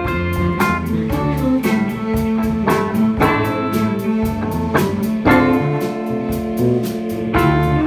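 Live band playing a song: drum kit keeping a steady beat of about four hits a second under guitar and a baritone saxophone holding sustained notes.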